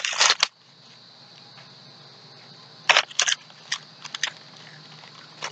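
Red foil snack bag rustling and crinkling close to the microphone, in short crackly bursts at the very start and again around three seconds in, with a few smaller crinkles after, over a faint steady hiss.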